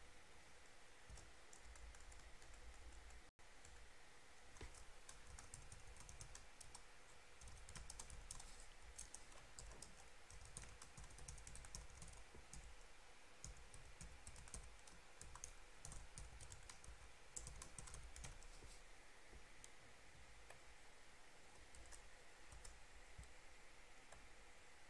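Faint typing on a computer keyboard: quick runs of keystroke clicks broken by short pauses.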